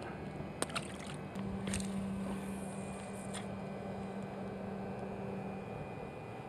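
A released bluegill landing in the lake with a small splash, followed by a few light clicks of fishing tackle, over a steady low hum.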